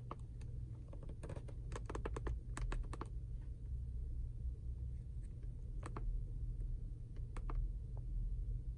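Button clicks on a handheld scan tool being worked to read the trouble code: a quick run of presses about a second in, then a few single presses, over a low steady hum.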